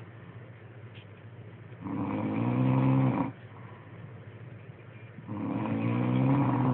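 Snoring from a sleeper: two long snores, each about a second and a half, swelling and then stopping abruptly, some three and a half seconds apart with quiet breathing noise between.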